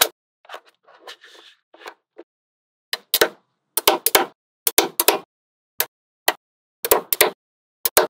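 Small magnetic balls clicking and snapping together in quick clusters of sharp clicks, after a couple of seconds of softer shuffling and sliding.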